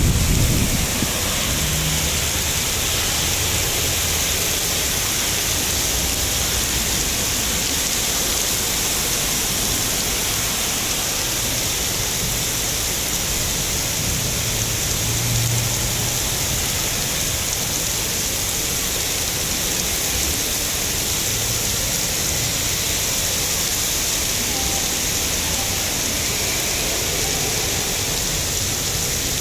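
Rain falling steadily, an even hiss that doesn't change, with a brief low rumble in the first second.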